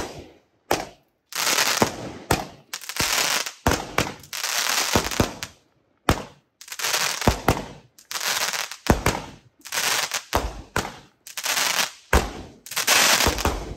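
Fireworks going off in quick succession, about a dozen or more shots roughly one a second. Each is a sharp bang trailing into a crackling hiss.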